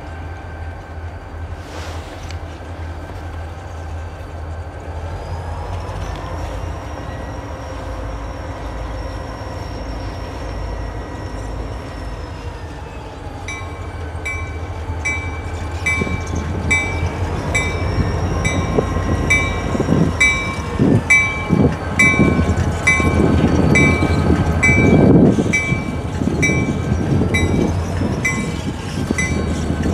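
Two Lake State Railway EMD SD40-2 diesel locomotives approaching: a steady engine rumble with a whine that slowly rises and falls. About halfway through the locomotive bell starts ringing steadily, and as the units draw close their wheels clatter and bang over rail joints and switches, growing louder.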